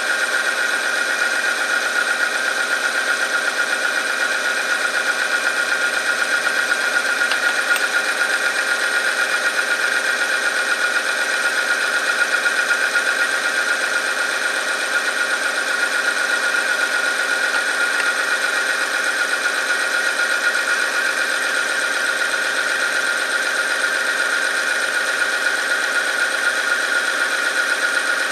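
Oil-film friction test machine running: its electric motor drives a rotating steel part against a test sample in motor oil heated to 100°C, giving a steady high-pitched whine.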